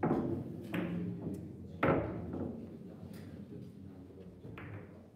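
Boccette balls clacking sharply against each other on a billiard table as they are rolled by hand. A loud clack comes at the start, the loudest about two seconds in, and fainter knocks follow.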